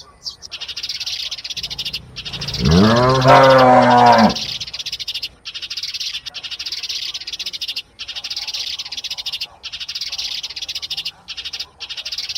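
A calf moos once, a single call about a second and a half long that rises and then falls in pitch, a little under three seconds in. A steady high-pitched trilling, broken by brief pauses, runs underneath.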